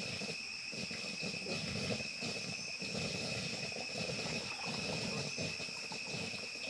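A steady, high-pitched insect drone, with irregular low sloshing and rustling from the shallow muddy water where fish are being handled.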